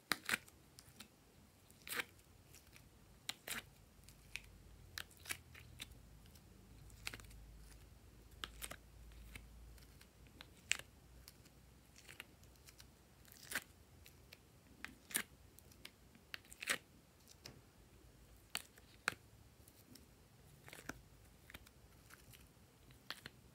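Irregular sharp clicks and crackles of a plastic mold being handled and flexed while soft modelling clay is pushed out of its cells, about one or two clicks a second.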